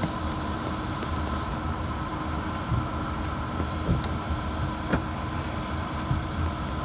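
Steady jet cabin noise heard inside a regional jet on the apron: a low rumble with a constant high whine. Two small clicks come about a second apart midway.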